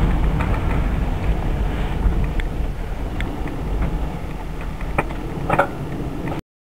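Low rumble of tyres and road noise inside the cabin of a Toyota Prius running on battery power alone, with no engine running, slowly easing off. There are a couple of light clicks near the end, and then the sound cuts off suddenly.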